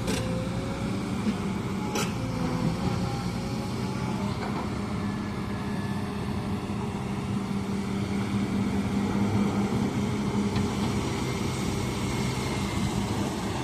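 Hydraulic excavator's diesel engine running steadily as it digs, with two sharp knocks, one at the start and one about two seconds in.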